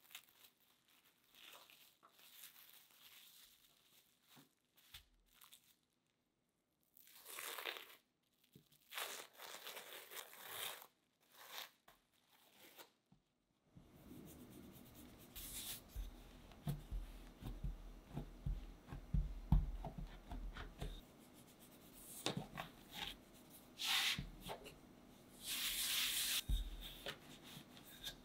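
Plastic cling film crinkling and rustling as it is folded around a block of laminated pastry dough. After that come soft handling knocks and rustles on a worktop, with some plastic rustling near the end.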